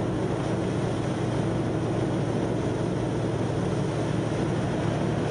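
Grape harvester's engine running steadily while its bunker is tipped and the harvested grapes pour out into a trailer.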